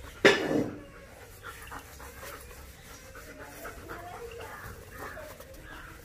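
German shepherd puppy panting and sniffing while nosing a balloon, with one sudden loud knock about a quarter second in.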